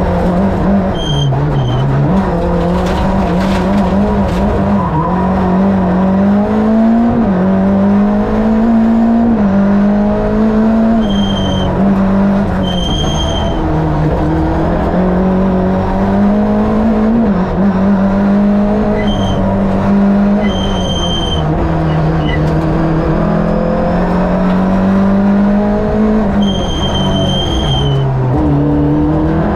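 Lada VFTS rally prototype's Fiat 2-litre twin-cam eight-valve four-cylinder engine at full load, heard from inside the car, revving up and dropping back again and again through gear changes and braking. Short high tyre squeals break in several times.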